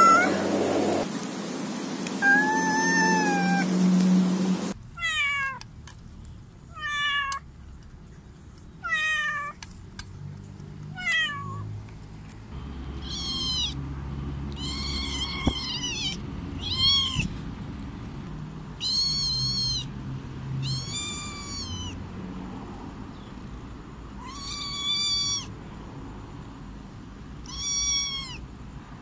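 Cats meowing one call at a time. First a tabby-and-white cat gives an arched meow. After a cut comes a string of short mews, each falling in pitch, about one a second. Then a grey kitten gives repeated arched meows every second or two.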